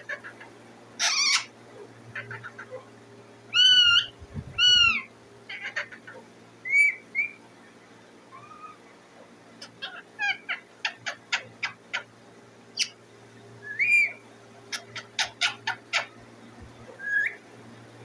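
A ring-necked-type green parakeet calling in bursts: a rasping squawk, two loud arching whistled calls, then quick runs of short sharp chirps. These are calls made to ask for food. A faint steady hum runs underneath.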